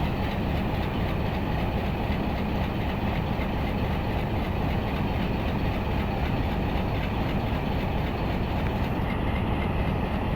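Pakistan Railways HBU-20 diesel-electric locomotive standing with its engine idling: a steady, low-pitched running sound that does not change.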